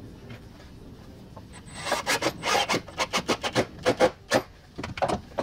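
Scratchy rubbing and scraping against the wooden subwoofer enclosure as a hand and arm work inside one of its speaker cutouts: a quick, irregular run of short strokes starting about two seconds in.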